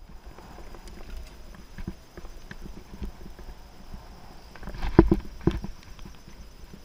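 Giant Anthem Advanced 1 full-suspension mountain bike riding a rough dirt singletrack: tyre rumble with irregular knocks and rattles from the bike, and a cluster of louder knocks about five seconds in.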